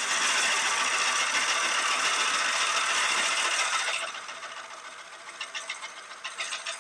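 Lathe tool cutting into a yew bowl blank spinning on a wood lathe, hollowing the inside: a loud, steady shearing hiss. About four seconds in the cut lightens and turns quieter, with rapid fine ticking.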